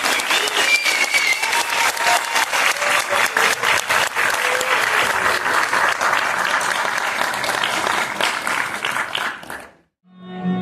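Audience applauding steadily, with a few voices calling out over it in the first seconds; the applause fades out near the end and music with plucked strings begins just after.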